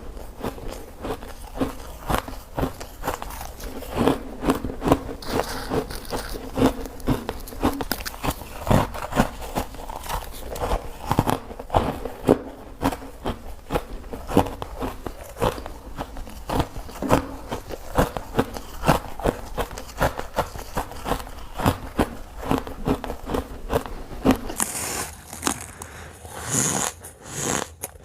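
A person biting and crunching ice close to the microphone: a steady, irregular run of sharp, crackling crunches. Near the end a low background hum drops out and the crunches turn crisper and higher.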